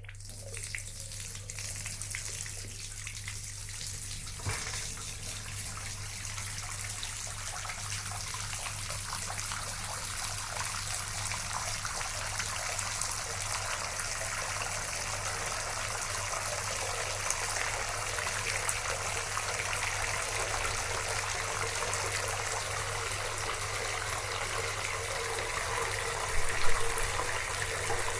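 Water running from a tap into an enamel bathtub as it fills: a steady rush that starts within the first second, over a steady low hum. A single knock about four and a half seconds in, and a brief louder splash near the end.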